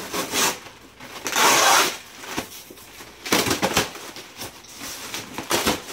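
Plastic shipping wrap and foam packing being torn and pulled apart by hand: several rustling tears, the longest and loudest about a second and a half in, with shorter ones about three and a half and five and a half seconds in.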